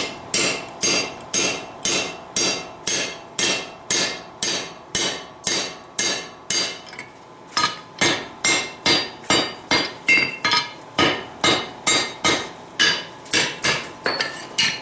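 Hand hammer driving a drift through a hot steel bar over the anvil's hole, opening out a punched hole: steady ringing blows on steel, about three a second, with a short break about seven seconds in before the blows resume.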